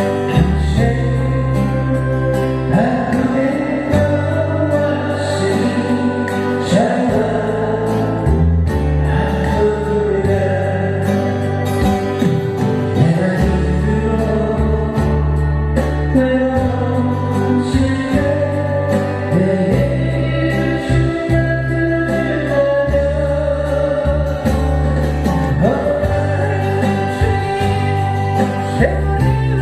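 A Korean ballad sung by a solo voice over a backing track with steady bass and guitar.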